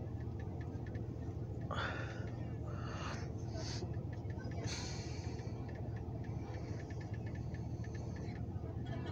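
Diesel locomotive idling steadily, a low even engine hum, with a few faint bursts of distant voices from passengers boarding the train.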